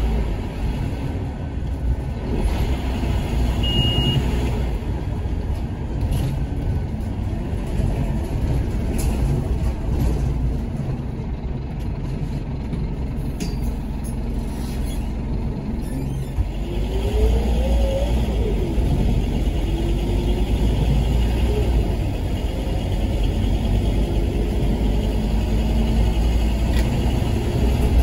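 Scania K230UB bus engine, rough-sounding, and its ZF Ecomat automatic gearbox heard from inside the saloon, with a steady low rumble. About sixteen seconds in the gearbox whine rises in pitch as the bus pulls away, and the whole sound grows louder, the ZF being unusually loud on this bus. A brief high beep sounds about four seconds in.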